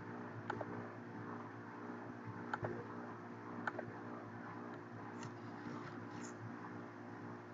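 A few sharp computer-mouse clicks, about half a second, two and a half and three and a half seconds in, over a steady machine hum made of several even tones, with two soft hissy ticks near the end.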